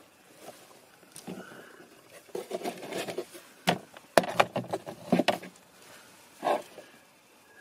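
Irregular plastic clicks, taps and light scrapes from hands working the BMW E36's plastic glove box light housing free, with a screwdriver knocking against the dashboard trim. The sounds come in several short clusters, the sharpest about four to five seconds in.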